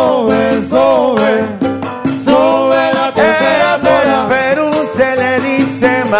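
Live salsa band playing: percussion and a steady bass line under a sliding melodic lead.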